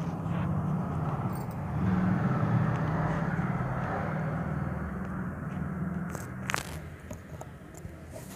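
A low rumbling, scraping noise that swells in, holds for about six seconds and then fades, with one sharp click about six and a half seconds in.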